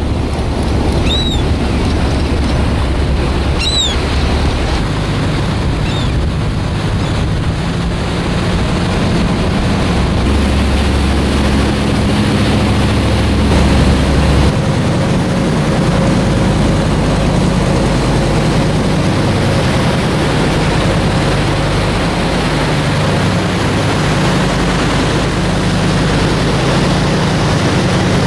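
A boat's engine running steadily under way, with water rushing past and wind on the microphone.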